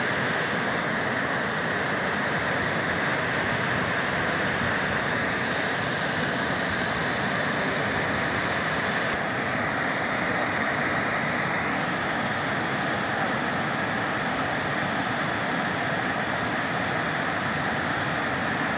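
Steady, even rushing of a muddy river in flood, a torrent carrying silt and debris.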